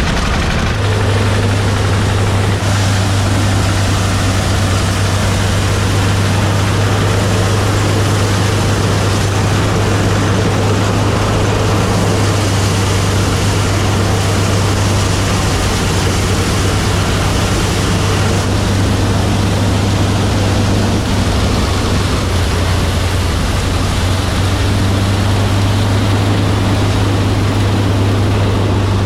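An engine running steadily with a strong low hum, under a dense rushing noise that stays unchanged throughout.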